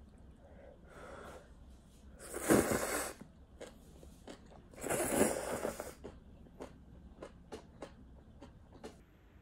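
A person slurping instant ramen noodles twice, each slurp about a second long, then chewing, with a run of small wet clicks near the end.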